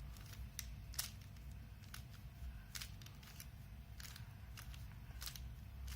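Rubik's Cube layers being turned by hand, the plastic pieces clicking and snapping in a series of irregular sharp clicks.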